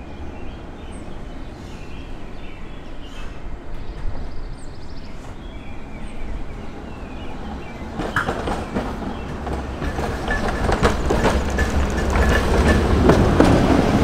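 A 1945–46 Pullman-Standard PCC trolley comes up and passes close by, its wheels clicking over the rails. The run grows louder toward a peak near the end, with a faint steady high whine as it goes by.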